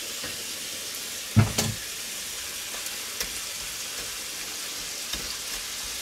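Beef fillet medallions and mushrooms searing in a frying pan, a steady sizzle. One loud knock comes about a second and a half in, with a few light clicks after it.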